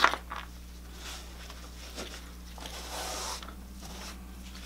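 A utensil clicking and scraping in a foil pan of rice and meat: a sharp click at the start, a couple of softer clicks, and a brief rustle about three seconds in, over a faint steady hum.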